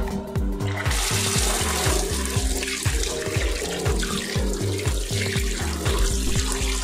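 Tap water running into a stainless steel sink as soapy hands are rinsed under it, starting about a second in. Background music with a steady beat plays throughout.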